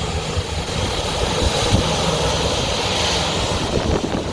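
Large jet airliner's engines running at takeoff thrust, a loud steady rush of jet noise with a high hiss that swells about three seconds in.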